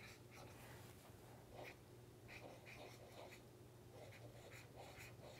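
Faint scratching of a marker pen drawing short strokes on paper, in an irregular run of several strokes a second.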